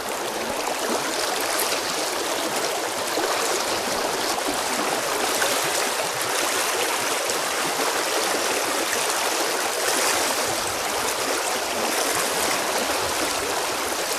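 A fast, shallow river running over a riffle: a steady rush of water with no break.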